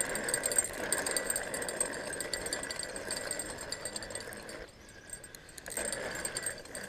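Spinning reel being cranked with a hooked channel catfish on the line, its gears giving a steady whirring rattle. The winding stops for about a second around five seconds in, then starts again.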